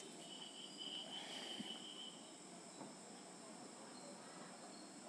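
Near silence: faint background hiss with thin, faint high-pitched steady tones, the clearest one in the first two seconds.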